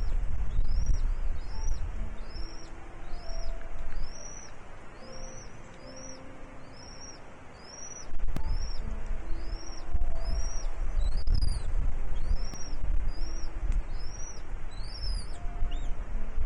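A bird calling a steady run of short, high, arched chirps, about one and a half a second, with wind rumbling on the microphone except for a few seconds in the middle.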